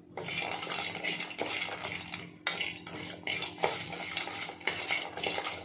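Spatula scraping and stirring whole spices as they are lightly roasted in a hot pan, metal scraping against the pan in an uneven rhythm. The sound breaks off briefly about two and a half seconds in.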